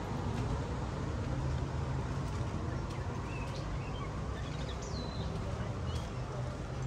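Outdoor ambience with a steady low mechanical hum under a constant hiss. A few short, high bird chirps come through in the middle.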